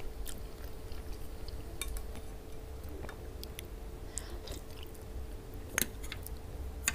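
Close-miked chewing of a mouthful of okra stew with meat and rice, with scattered small wet mouth clicks and two sharper clicks near the end. A faint steady hum runs underneath.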